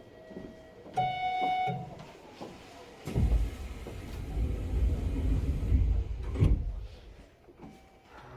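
Inside a Hanshin 1000 series train car: a short door-closing chime sounds about a second in. About three seconds in, the doors slide shut with a thump, followed by a low rumble that lasts a few seconds and a sharp knock near the end.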